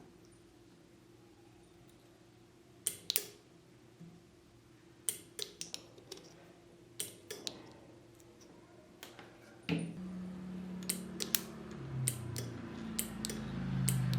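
Scattered sharp clicks and knocks of small hard objects being handled, with a faint steady hum under them. About ten seconds in, a louder low hum comes in and steps lower a couple of seconds later.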